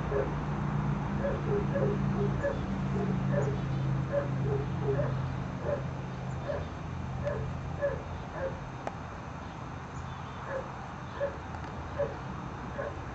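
Briard puppies yipping and whining in play: short, high yelps repeating at about two a second. A low steady hum underneath fades out about halfway through.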